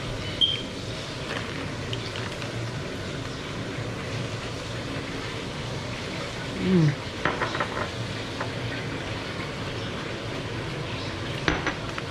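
Steady background hiss, with a man eating a burrito: a short falling "mmm" of enjoyment about seven seconds in, then a few small wet mouth clicks as he chews.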